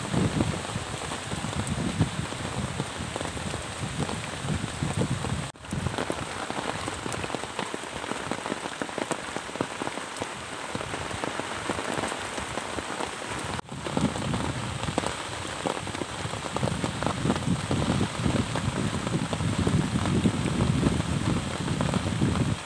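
Steady rain falling on wet, muddy ground and puddles, a constant patter with many individual drops. It cuts out briefly twice, about five and a half and thirteen and a half seconds in.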